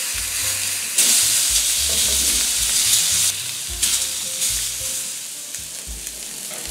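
Thin beef steak sizzling as it sears over high heat in a hot non-stick frying pan while being turned over. The sizzle jumps louder about a second in, eases off after about three seconds and grows fainter near the end.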